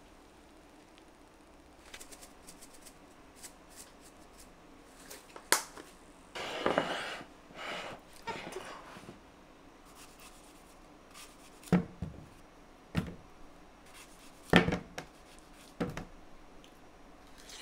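Objects being handled: scattered light clicks and knocks, with a couple of short rustles in the first half.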